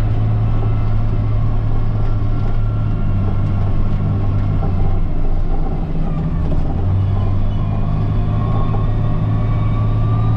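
CAT 938G wheel loader's diesel engine running steadily under load while plowing snow, heard from the operator's seat. Its pitch shifts slightly around the middle, and a faint rising whine comes in near the end.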